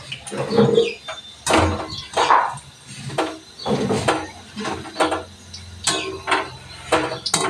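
Steel kitchen utensils clattering: a slotted strainer, tongs and steel plates knocking and clinking against each other and the wok. The clinks are irregular, roughly two a second, some with a brief metallic ring.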